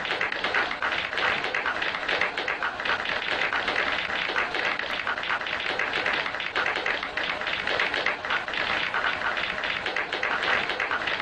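A large audience clapping, a dense steady patter of many hands.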